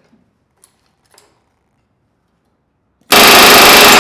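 Pneumatic rivet gun hammering for just under a second near the end, driving a rivet through a tungsten bucking bar laid on a paint stick over an aluminium rib; a rapid, loud rattle. A couple of light clicks of parts being handled come before it.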